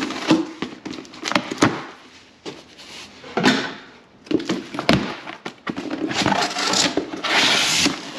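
Scissors cutting through packing tape on a corrugated cardboard box, then the cardboard flaps being pulled open, with short snips, knocks and scrapes and one longer scrape of cardboard near the end.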